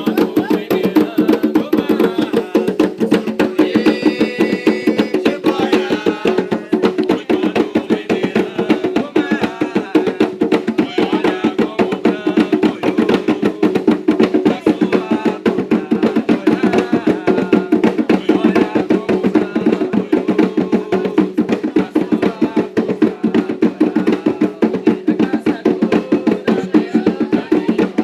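Umbanda ponto: atabaque hand drums beaten in a fast, steady rhythm, with voices singing over them.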